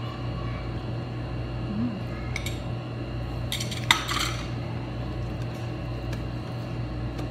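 A metal fork clinking against a plate: a few light clinks, then a louder clatter about four seconds in, over a steady low hum.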